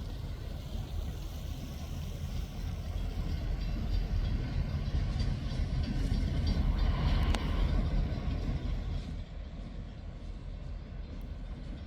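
Low, steady vehicle rumble that swells to its loudest about seven seconds in, with a single sharp click, then drops off a couple of seconds later.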